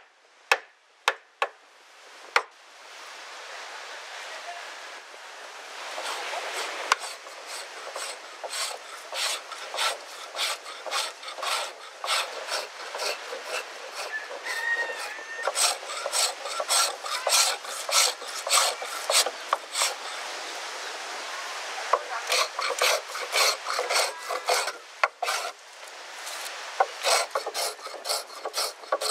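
Wood being worked by hand on a jukung canoe's boards: a few sharp taps at first, then a hand tool scraping and rasping the wood in repeated strokes, about two a second, with short pauses between runs.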